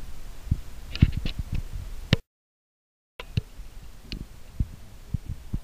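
Scattered soft knocks and clicks over a low rumble, with no music or speech. About two seconds in, the sound cuts out completely for about a second, then the knocks resume.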